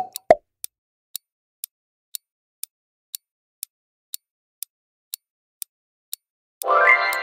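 Quiz countdown timer sound effect: a clock ticking about twice a second, after two short pops at the start. Near the end a loud pitched sound effect slides up and then fades as the timer runs out.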